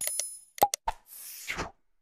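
Sound effects of an animated subscribe button: a click with a short bell-like ring, a sharp pop and two quick clicks, then a whoosh near the end.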